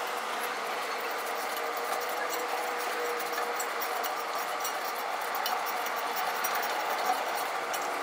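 Small metallic ticks and scraping of an Allen key working the set screw on a condenser fan blade's hub, over a steady hiss.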